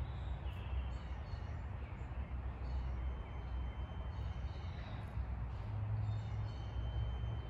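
Outdoor background: a steady low rumble with a few faint bird chirps.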